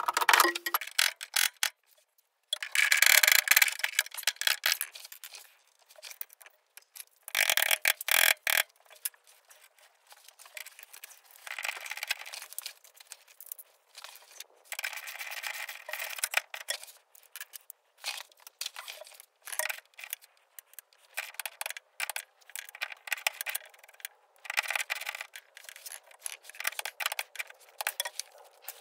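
Metal hand tools scraping and clicking against metal in irregular bursts, loudest a few seconds in and again around eight seconds in.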